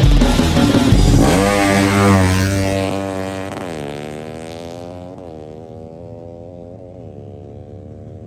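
Rock music ending about a second in, then a drag-racing motorcycle engine revving: its pitch climbs, drops, then settles to a steadier note with a few short blips of the throttle as it fades.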